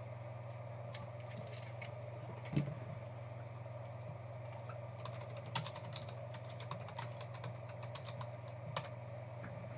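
Typing on a computer keyboard: a few clicks early, then a quick run of keystrokes from about five seconds in. There is a soft thump about two and a half seconds in, and a steady low electrical hum underneath.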